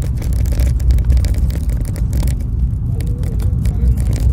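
Pickup truck driving on a rough road, heard from inside the cab: a steady low engine and road rumble with frequent short knocks and rattles.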